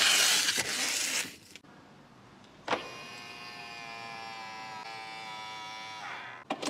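Protective plastic film being peeled off a car's dashboard screen, a loud rasping tear for about a second and a half. After a pause comes a click, then the steady whine of a small electric motor on a powered part of the car for about three and a half seconds, stopping near the end.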